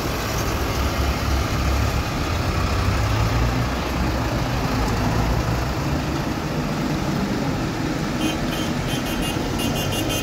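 Diesel engines of large farm tractors running as they drive slowly past one after another: a steady deep rumble, loudest in the first few seconds. A quick run of high ticks, several a second, comes near the end.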